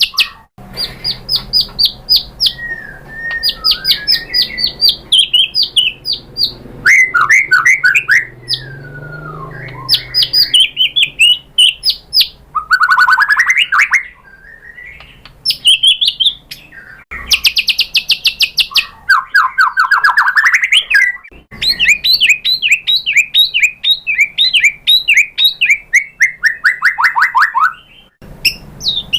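White-rumped shama (murai batu) singing: loud phrases of fast, rapidly repeated chattering notes and quick rising and falling whistles, with short pauses between phrases.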